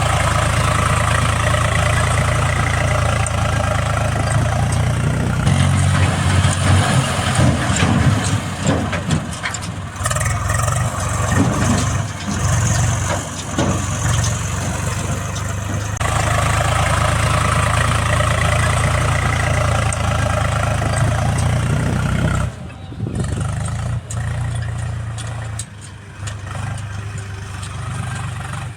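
Heavy diesel engines of a backhoe loader and tractor running, with the engine speed rising and falling in the middle; the sound changes abruptly and drops in level about three-quarters through.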